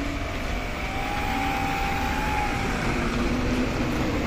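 RC model Cessna 182's motor and propeller running as the plane taxis on asphalt, the pitch rising about a second in and falling back near the three-second mark.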